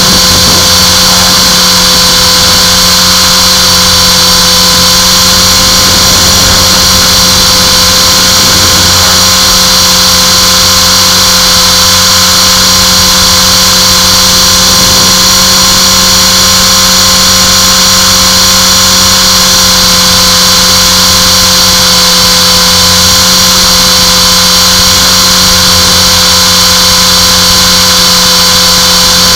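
Electric Trex 450 RC helicopter's motor and rotors running with a loud, steady whine and hiss.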